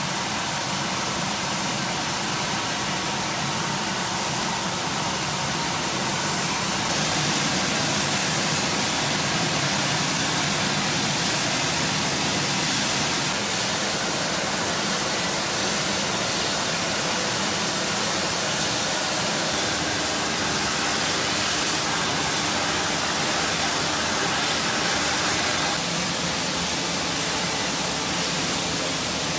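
Natural gas rushing out of a main pipe burst by an excavator: a steady, unbroken hiss that has not yet been shut off.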